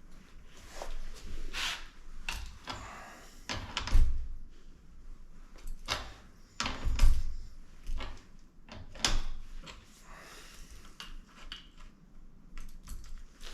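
Bicycle workshop tool work on a bike's crank and bottom bracket: irregular metallic clicks, clinks and knocks of tools and parts, with two heavier thumps about four and seven seconds in.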